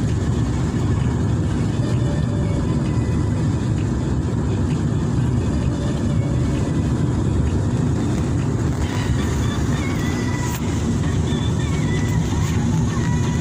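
Steady low rumble of a vehicle driving along a road in heavy rain, with rain and road noise blending into one even drone.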